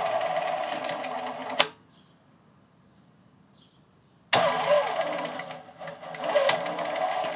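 Kubota V2203 four-cylinder diesel being cranked over by its electric starter with the fuel bleed open. The first burst of cranking cuts off with a click about a second and a half in; after a pause of roughly two and a half seconds, cranking starts again abruptly and carries on.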